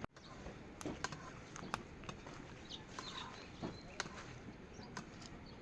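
Steady rain with scattered drips tapping sharply, and a few short bird chirps about three seconds in.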